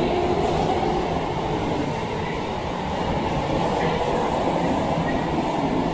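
Tokyo Metro Tozai Line subway train running along the platform: a steady rumble of wheels and motors, with some clickety-clack from the rails.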